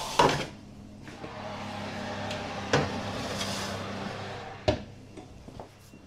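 Kitchen clatter as roasting trays and pans are handled: a few sharp knocks, the loudest just after the start and about three-quarters of the way through, with a steady hiss between them.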